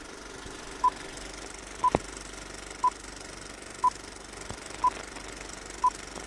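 Film countdown leader beeps: a short, steady-pitched beep once every second, six times, over a faint steady hiss, with a single click about two seconds in.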